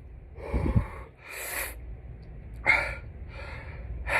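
A man breathing hard, with about five loud hissing breaths in and out, from the burn of super-hot chili sauce eaten on chicken wings. A low thud comes under the first breath.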